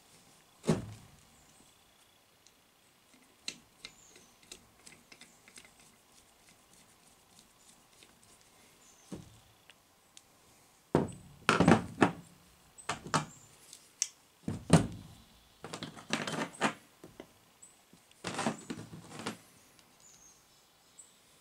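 Tractor magneto and hand tools handled on a plastic truck-bed liner: scattered light clicks and taps, then, from about halfway, a run of heavier thunks and knocks as the magneto is set down and worked on.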